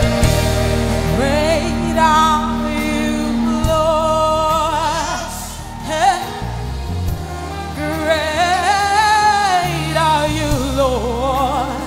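Live gospel worship music: a singer holds long, wavering notes without clear words over a band's sustained low chords.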